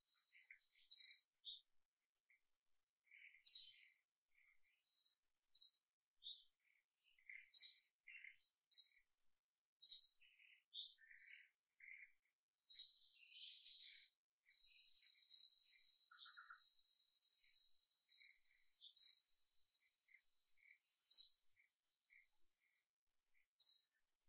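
A wild bird calling: single short, high chirps repeated about every two seconds, over a faint high buzz.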